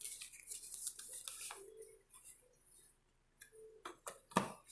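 Tarot cards being shuffled and handled: a run of light papery flicks and clicks, thickest near the end.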